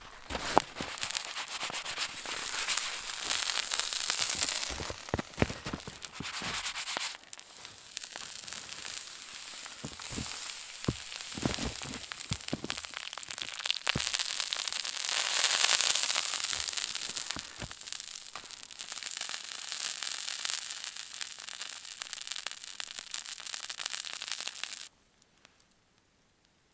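Melting spruce sap sizzling and crackling as it burns, a steady hiss full of small pops, with a few low knocks in the middle. It cuts off suddenly near the end.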